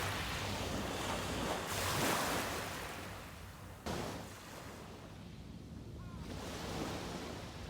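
Ocean waves breaking and washing up on a beach, the surf swelling and falling back, with a sudden sharper wave crash about four seconds in.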